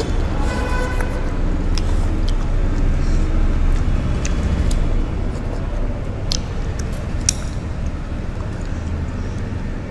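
Steady low rumble of background noise with scattered short clicks and smacks from two people eating noodles straight off their plates with their mouths.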